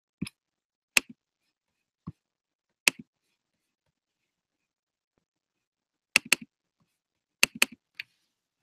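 Sharp clicks from a computer being operated: a few single clicks spaced about a second apart, then several quick double-clicks in the last few seconds.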